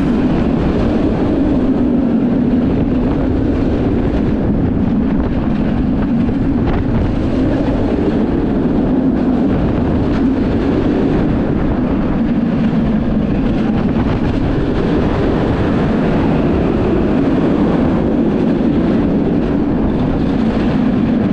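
Kumba, a B&M steel looping roller coaster, with its train running flat out along the track: a loud, steady rumble of wheels on steel mixed with rushing wind on the microphone.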